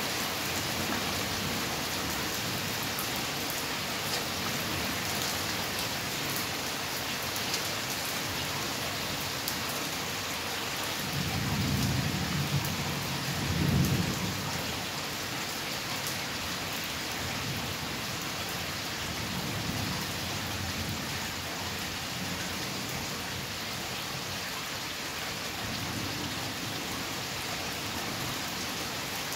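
Steady rain falling, a continuous even hiss. About eleven seconds in, a roll of thunder rumbles low for a few seconds, loudest near the middle, with fainter distant rumbles later on.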